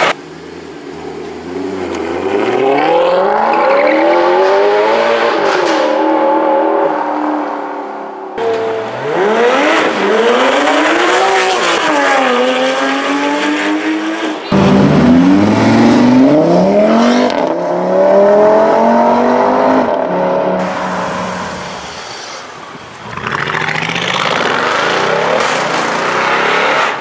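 A series of short, cut-together clips of sports car engines accelerating hard and revving: an Alfa Romeo 8C Competizione V8 first, then a Porsche 911, and near the end a Brabus-tuned Mercedes S-Class. In each clip the engine note climbs in pitch, drops briefly at each gear change and climbs again, then falls away. The clips break off abruptly about 8, 14½ and 23 seconds in.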